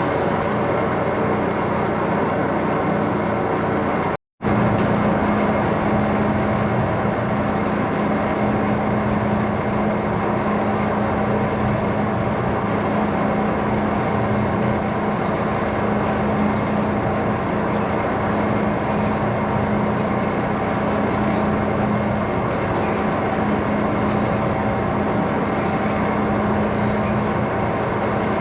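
A machine running steadily with a constant hum and hiss. The sound cuts out completely for a moment about four seconds in, and a faint regular tick comes in about every second and a half in the second half.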